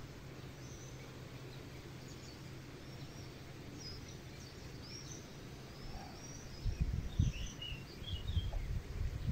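Small birds chirping and warbling in short, high-pitched phrases over quiet outdoor background noise. From about two-thirds of the way in, heavy low rumbling bursts come in, like wind buffeting the microphone.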